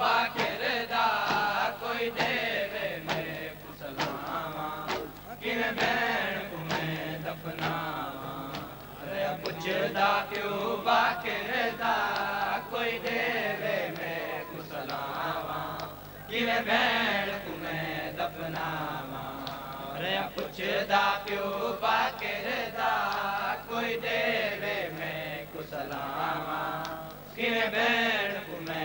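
Male voices chanting a noha, a Shia mourning lament, in long melodic phrases. Repeated sharp slaps of chest-beating (matam) keep the rhythm.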